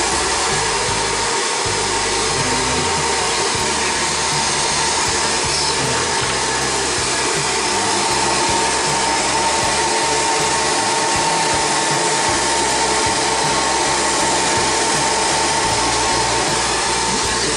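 Hair dryer blowing steadily, a rushing air noise with a steady whine through it, heating a vinyl wrap so that its adhesive becomes tackier.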